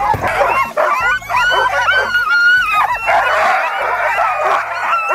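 A team of harnessed Alaskan husky sled dogs barking and yipping together in a continuous, overlapping chorus, excited while being hooked up before a run.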